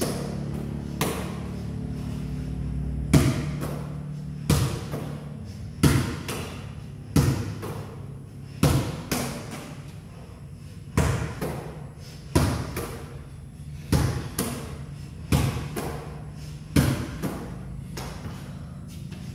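Netball thrown against the wall and bounced on a hard concrete floor: a thump about every second and a half, about a dozen in all, with one longer gap midway. Faint background music plays underneath.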